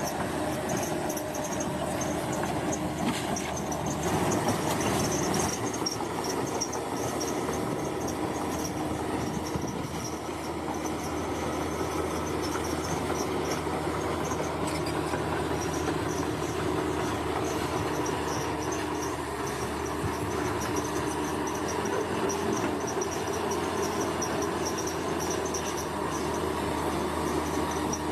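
Bulldozer's diesel engine running steadily. Insects chirp in a constant high pulsing band over it.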